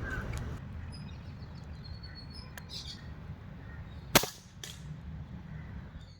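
AARMR carbine air rifle firing a single shot about four seconds in: one sharp crack, followed about half a second later by a fainter second crack. Faint bird chirps and a low rumble run underneath.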